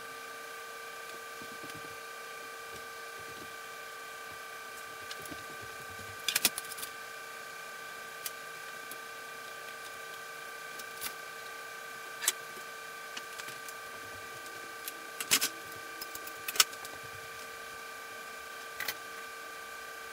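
Scattered knocks and clacks of metal strips and clamps being handled on a plywood workbench, over a steady electrical hum of several fixed tones.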